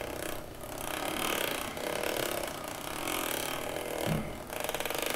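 Belt drive of a Rize Fixie e-bike clicking as the crank and rear wheel turn: a rapid, steady run of clicks, with a low thump about four seconds in. The clicking is the sign of a belt that is too tight.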